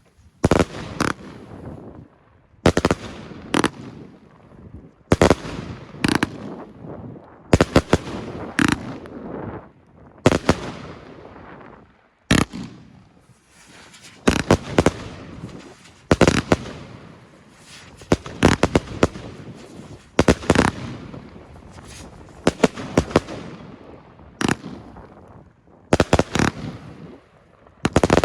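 Hellfire 3 compound firework cake firing volley after volley of shots. Clusters of sharp bangs come every second or two, each fading off into a trailing tail, with a quick rapid-fire string of cracks near the end.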